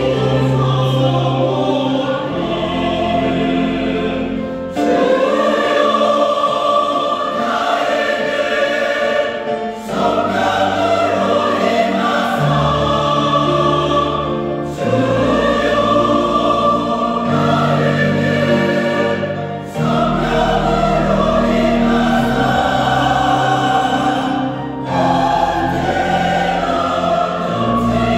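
A church praise team singing a worship song together, backed by keyboard and bass guitar, with long held notes and slow chord changes every two to three seconds.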